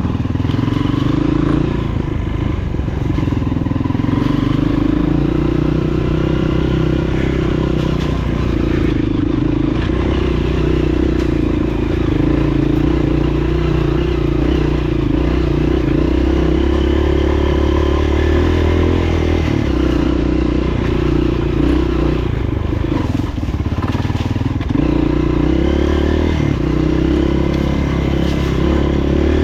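Honda CRF230F's air-cooled single-cylinder four-stroke engine running steadily, with only slight changes in pitch.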